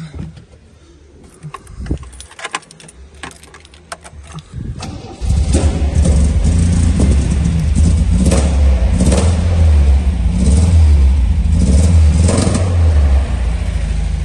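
Keys clicking and rattling at the ignition of a 1977 MGB, then its 1.8-litre B-series four-cylinder engine starts about five seconds in and runs cold and a little lumpy, its revs rising and falling several times. An exhaust blow from the back is audible, though it might just be a few misfires.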